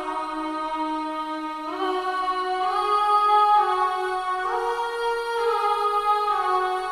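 Sustained vocal 'aah'-style pad from the Death Piano sample library in Kontakt, playing slow chords that change every second or two, with no percussion.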